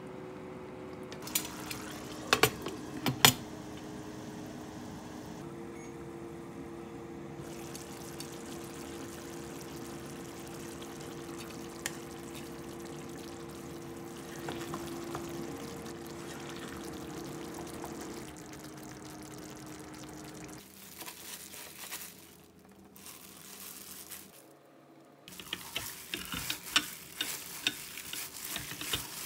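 Tomato meat sauce simmering and sizzling in a frying pan while a wooden spatula stirs it, knocking against the pan a few times early on. After about 20 seconds it gives way to plastic-gloved hands kneading ground meat in a glass bowl, with dense crinkling and squelching.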